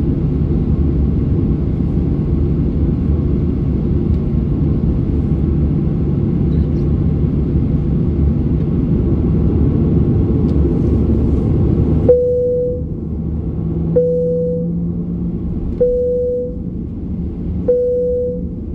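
Steady low cabin rumble of a taxiing Boeing 737-800. About twelve seconds in, the rumble drops, and four short clicks, each followed by a brief mid-pitched hum, repeat about every two seconds.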